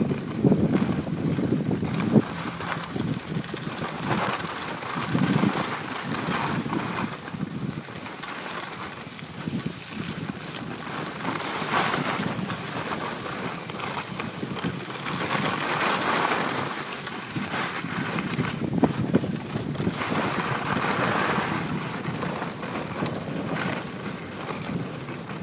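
Wind rushing over a phone microphone carried by a moving skier, with the hiss and scrape of skis on packed snow swelling now and then.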